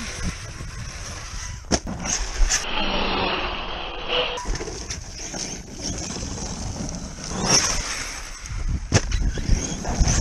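Electric ARRMA Outcast 8S RC truck with a 980kv brushless motor running over rough ground, with several sharp knocks from bumps and landings.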